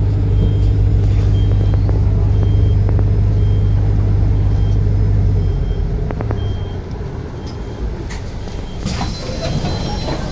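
Bus engine heard from inside the cabin, a steady low hum that changes and eases a little about halfway through as the bus moves along. A short high electronic beep repeats about every two-thirds of a second throughout.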